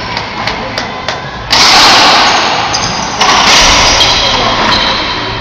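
Racquetball rally: two sharp hits of the ball, about a second and a half in and again about three seconds in, each ringing on and fading in the enclosed court, with a few lighter ticks of bounces or footwork between.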